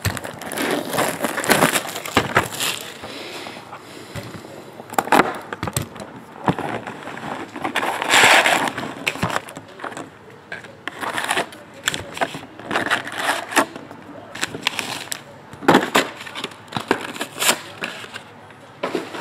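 Trading card packs being torn open and handled: wrappers crinkling and tearing, with irregular clicks and rustles of cards being shuffled. There is a louder spell of crinkling about 8 seconds in.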